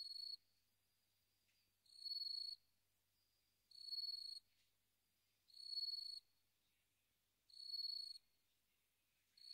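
A cricket chirping: short, high trills about two-thirds of a second long, repeating evenly about every two seconds.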